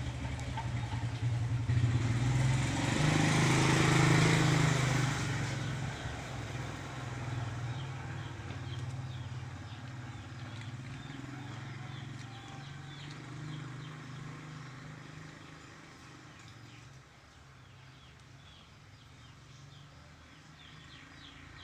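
A motorcycle engine going by: it swells to its loudest a few seconds in, then fades slowly away.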